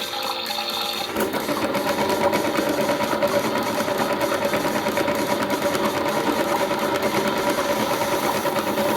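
A toy washing machine's small electric motor starting about a second in and running with a steady whir, after a moment of running water.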